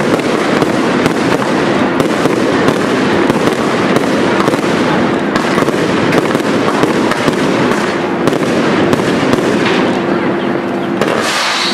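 Firework cakes (compound batteries) firing a rapid barrage: a dense, continuous stream of bangs and crackling from launched shots and bursting stars.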